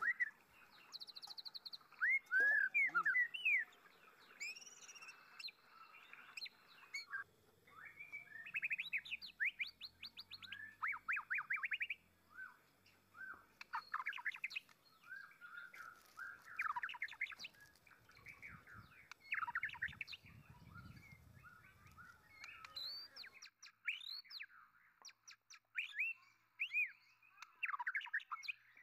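Wild birds chirping and calling over and over, many short sweeping notes following one another in quick runs.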